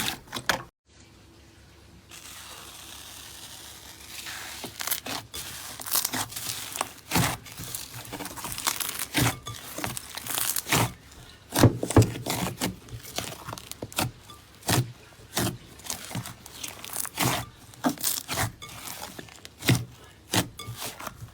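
Slime being squeezed and pressed by hand, with a dense run of irregular crackling clicks. The sound drops out briefly about a second in, then starts again.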